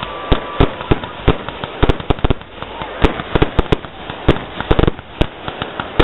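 Fireworks display: aerial shells bursting in a rapid, irregular string of sharp bangs, several a second.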